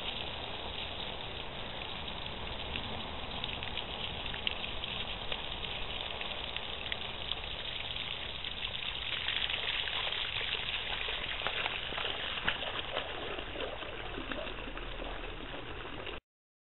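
Sump pump discharge water gushing and splashing out of a drain outlet through a hole broken in its frozen-over ice, growing stronger about nine seconds in.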